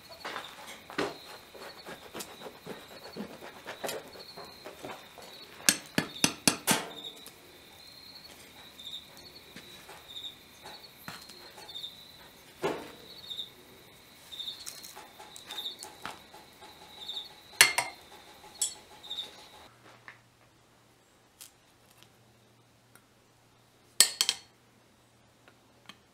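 Scattered light metallic clinks and taps of shop tools, a quick cluster of them about six seconds in. Under them is a steady high pulsing insect chirp, like crickets, which stops at a cut about three-quarters of the way through. After the cut a faint low hum remains, with a couple more taps.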